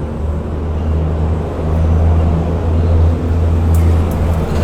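Low, steady engine rumble, like a road vehicle running close by, growing louder partway through.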